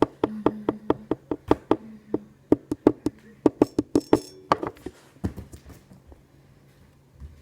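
Rapid knocking, about four or five sharp knocks a second, that stops about five seconds in.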